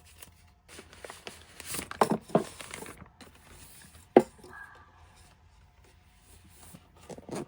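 Product packaging being handled during an unboxing: rustling and light knocks, busiest between about one and a half and three seconds in, with a single sharp click a little after four seconds in.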